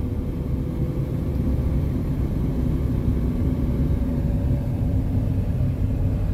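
Steady road noise inside a moving car's cabin: a low rumble of tyres and engine, with a faint steady hum.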